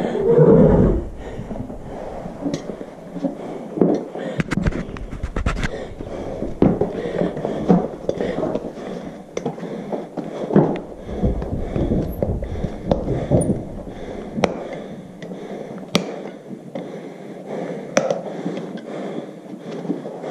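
Irregular knocks and metal clicks from a farrier's long-handled hand tools working on a horse's hoof, with a louder low thump in the first second.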